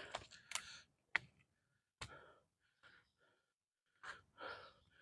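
Faint breathing of a hiker climbing uphill: soft sighing breaths near the end, with a few sharp clicks in the first two seconds.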